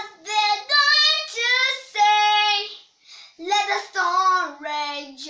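A young girl singing solo, unaccompanied, in short phrases with held notes, a brief break about three seconds in, then a long held low note.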